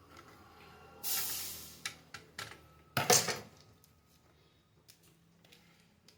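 Tools and wires being handled on a workbench during an electronics repair. There is a short hiss-like rustle about a second in, a few sharp clicks, a louder clatter about three seconds in, and then a few faint ticks.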